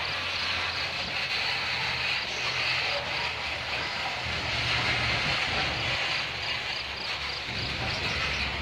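Loaded coal hopper cars of a long freight train rolling slowly past: a steady low rumble of wheels on rail under a high, creaking hiss.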